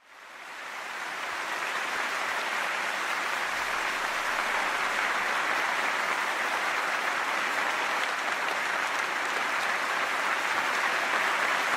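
Large audience applauding steadily, fading in over the first two seconds.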